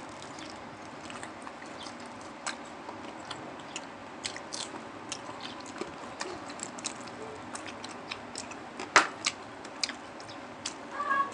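Close-up eating sounds of crispy deep-fried pork (lechon kawali and crispy pata) being bitten and chewed by two people: a rapid scatter of crackling crunches, with a louder crunch about nine seconds in.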